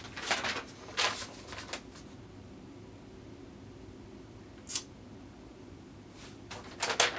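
A few short, crisp handling noises, rustles and small scrapes, from something being handled in the lap, clustered in the first second and a half, once more midway and again near the end, over a low steady room hum.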